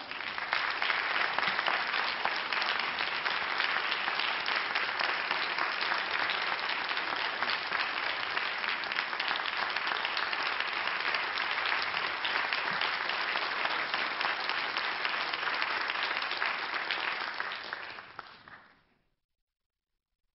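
Concert audience applauding steadily, dying away about 18 seconds in.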